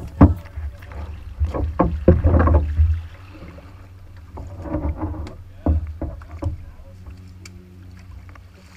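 Paddlers boarding an outrigger canoe in shallow water: irregular knocks and thuds against the hull and splashing, with a low rumble over the first three seconds.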